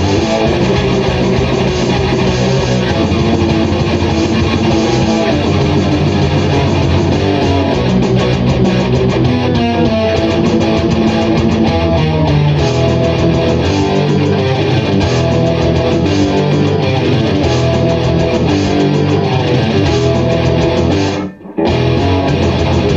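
Jackson RR5 electric guitar played through a Marshall JVM amplifier with heavy distortion, riffing in a thrash metal style. The sound drops out for a split second near the end, then the riffing resumes.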